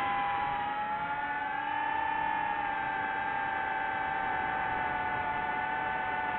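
DJI FPV drone's motors and propellers whining in flight, several steady tones whose pitch rises a little about a second in, then holds and eases down slightly as the throttle settles.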